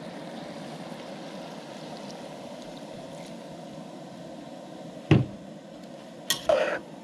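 Beer poured into a hot stainless-steel pot of cabbage and sausage on a propane camp stove, with steady bubbling. About five seconds in, a measuring cup is knocked down on the table, then a metal spatula clinks and scrapes in the pot.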